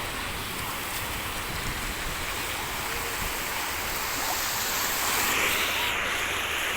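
Sea waves washing onto the beach: a steady rush of surf that swells louder about five seconds in.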